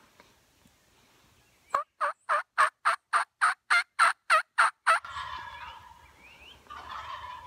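A wild turkey calling a run of about a dozen evenly spaced, sharp yelps, roughly four a second, lasting about three seconds. After it, a rustling noise with a low rumble and a few faint chirps from other birds.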